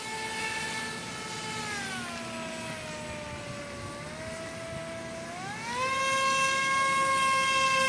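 Aquacraft Cajun Commander RC airboat's engine and propeller buzzing across the water, the pitch sliding down over a couple of seconds to a lower drone, then climbing sharply about five and a half seconds in and holding high.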